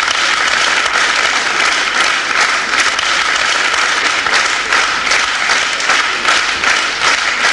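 Studio audience applauding: dense, steady clapping from a large crowd, welcoming performers onto the stage.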